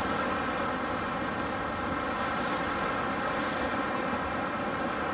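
Steady roar of ocean surf breaking on a rocky reef, with wind on the microphone.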